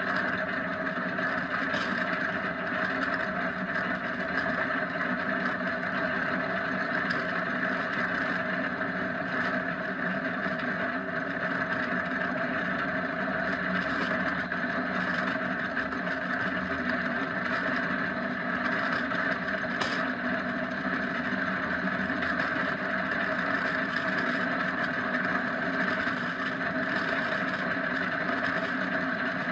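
Kart running fast down an asphalt road: a steady, unchanging drone of road and rolling noise that holds the same pitch throughout.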